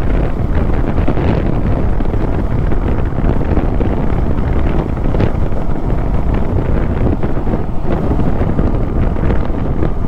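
Steady wind rush over the microphone of a rider on a moving motorcycle, with the bike's running and road noise beneath it.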